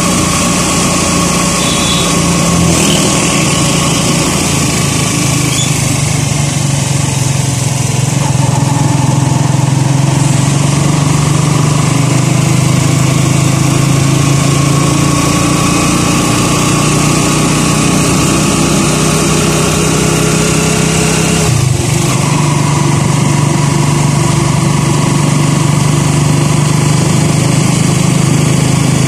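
Small motorcycle engine of a tricycle (motorcycle with sidecar) running steadily under way, with the hiss of tyres on a wet road. About three-quarters through, the engine note breaks briefly and then carries on.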